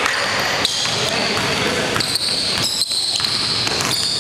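A basketball being dribbled on a hardwood gym floor during a game, with sneakers squeaking on the court in the second half.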